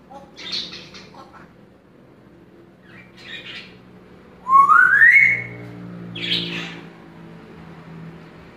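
Congo African grey parrot making short raspy calls, then a loud whistle that rises in pitch about four and a half seconds in, followed by one more raspy call.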